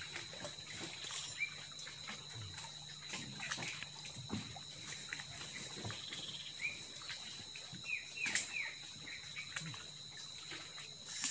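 Quiet lakeside ambience: light water sounds and a steady high whine, with a few faint clicks and a handful of short rising chirps about two-thirds of the way through.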